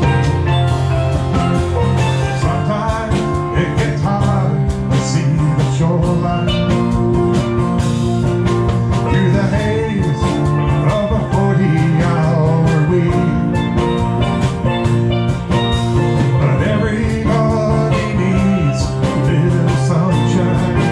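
Live band playing a country-rock song on guitar, steel drums, bass guitar and drum kit, with a steady beat and a prominent bass line.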